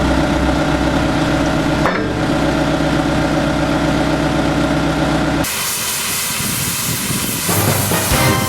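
Sizzling hiss of a MIG (semi-automatic) welding arc over a steady hum. About five and a half seconds in, the hum cuts off abruptly and a brighter, crackling hiss carries on.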